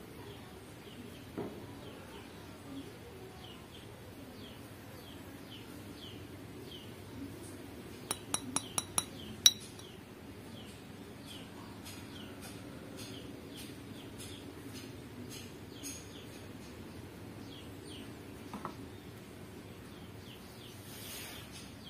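Small glass bottle being handled, giving about five quick, sharp glass clinks a little before the middle, the last the loudest, with a few lighter knocks elsewhere. Faint bird chirps repeat about twice a second behind it.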